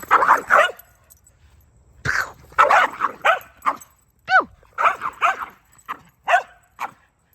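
Dog barking excitedly in short bursts, in clusters of quick barks, with a high-pitched rising-and-falling yip about four seconds in.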